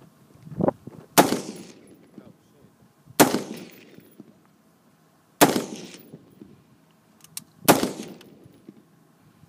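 Four rifle shots about two seconds apart, each a sharp crack followed by a rolling echo that dies away over about a second.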